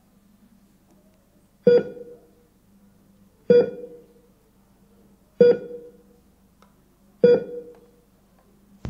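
Hospital heart-monitor (ECG) beeping: four single beeps about two seconds apart, each a short clear tone that dies away quickly, marking a slow heartbeat.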